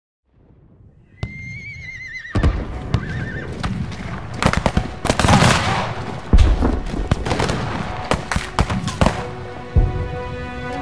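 A horse whinnies, then a battle din of many sharp musket shots and heavy booms, the loudest about six seconds in, over film score music.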